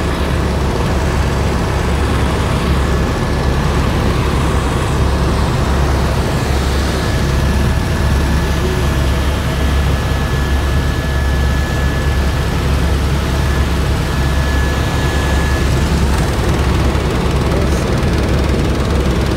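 Helicopter cabin noise in flight: a loud, steady low drone from the rotor and engine, with a thin steady high whine over it.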